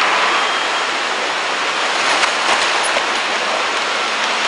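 Rushing, churning water as waves surge around a large ship's hull just after its launch; a few faint clicks about two to three seconds in.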